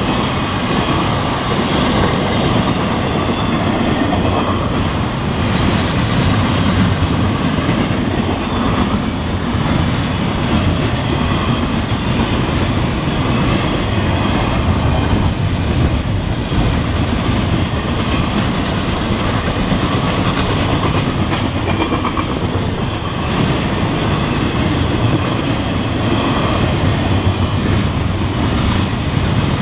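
Florida East Coast Railway intermodal freight train, its trailer and double-stack container cars rolling past close by: a loud, steady rumble of steel wheels on rail that does not let up.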